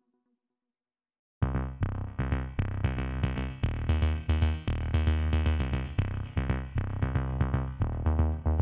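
Silence for about a second and a half, then electronic background music starts suddenly, with synthesizer chords over a steady drum-machine beat.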